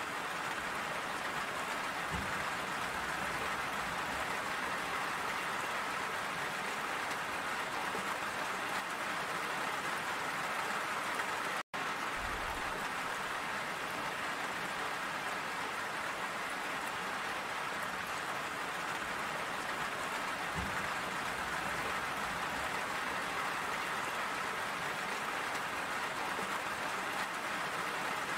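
Steady rain falling, a dense, even patter with no break in intensity. The sound cuts out for an instant about twelve seconds in.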